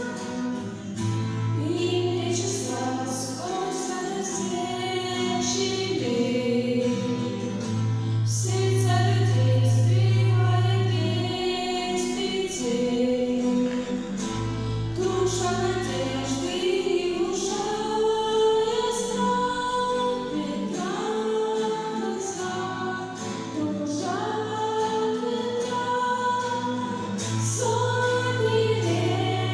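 A song with sung vocals over a backing track of long held bass notes.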